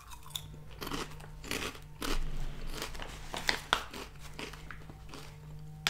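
Close-up chewing of crunchy Garden Veggie Straws, a hollow puffed potato-starch snack: a run of crisp crunches every half second or so, with a louder click near the end.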